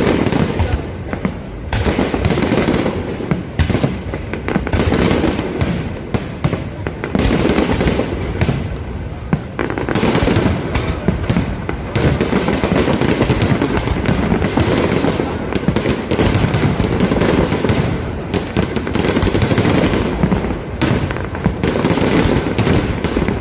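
Fireworks going off in rapid, dense succession: a continuous barrage of bangs and crackling bursts with no real pauses.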